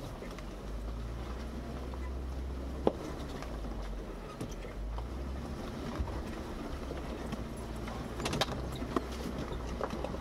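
Jeep Wrangler Rubicon engine running with a low, steady drone as it crawls up a rocky off-road hill climb. Scattered sharp knocks and clunks come from the rough ground: a single one about three seconds in and a cluster near the end.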